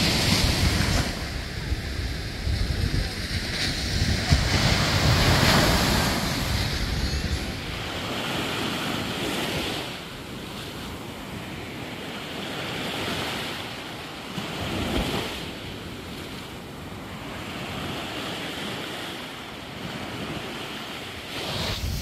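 Small surf breaking and washing up a sandy beach in slow repeated swells of hiss, with wind buffeting the microphone, heaviest in the first several seconds.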